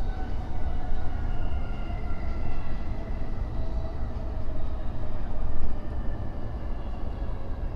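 JR East E233-3000 series electric train running on the rails: a steady low rumble with the electric motors' whine slowly falling in pitch as the train slows.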